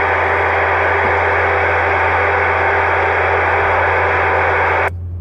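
CB radio receiving a strong keyed-up carrier with no voice on it: a steady loud hiss of static with a low hum and a few faint steady tones. It cuts off abruptly near the end as the transmitting station unkeys.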